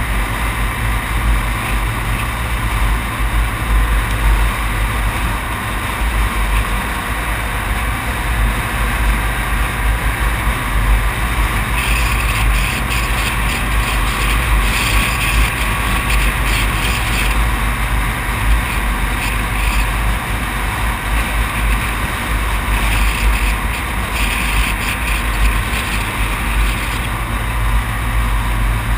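Steady road and wind noise from a vehicle driving along a paved highway at speed, with a constant low rumble.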